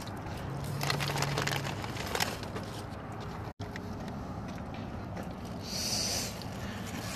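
Rustling and clicking handling noise from a phone being moved, with a brief low hum about a second in. The sound drops out for an instant midway, and a short hiss follows near the end.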